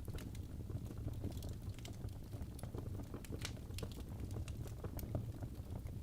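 Wood fire burning in a fireplace: a steady low rumble of flame with dense, irregular crackles and small pops, a few sharper snaps scattered through.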